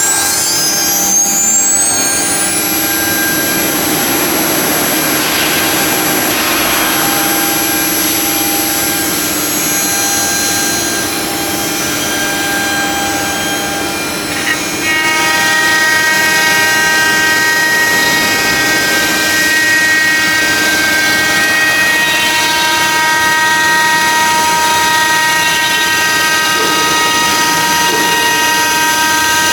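An ELE2128ATC CNC router's spindle spinning up over the first couple of seconds and then running at speed with a steady high whine. About halfway through the whine changes pitch and gets a little louder.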